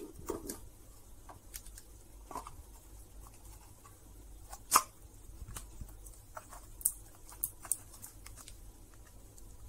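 Faint handling noise of 18650 lithium cells and wires being fitted into a power-bank battery holder box: scattered light clicks and taps, the sharpest about five seconds in.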